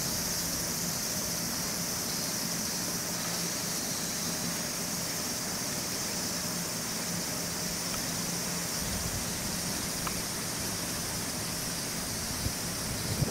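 Steady outdoor background of a continuous high-pitched insect chorus over a low, even hum, with a few faint clicks near the end.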